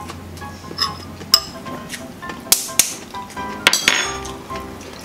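Several sharp clinks and taps of dishes and balut eggshells being handled at a table, over background music.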